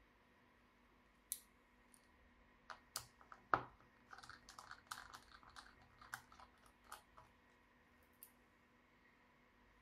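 Clicks and light knocks from a laptop and its parts being handled during disassembly. There is a single click about a second in, then a dense run of clicks for about four seconds with the loudest knock early in the run, and a last click near the end.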